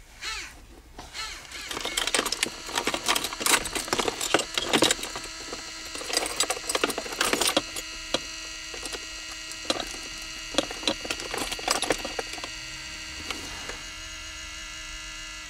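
Dalco car DVD head unit's disc mechanism loading a disc: irregular clicking and rattling for several seconds, then a steady faint tone with occasional clicks once the disc is read.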